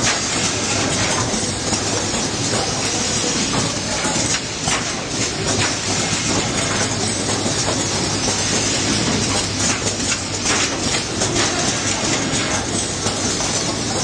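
Automatic wire harness processing line running: a steady, dense mechanical clatter with hiss and a low hum, and sharper clacks every few seconds.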